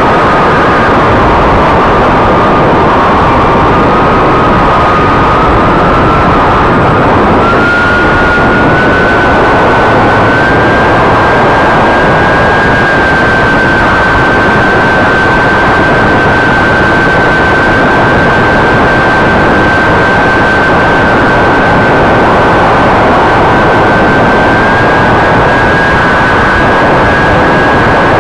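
Radio-controlled Canadair CL-415 model's motors and propellers, heard from the onboard camera in low flight: a steady whine that steps up in pitch over the first ten seconds or so and then holds, under a loud, constant rush of wind noise.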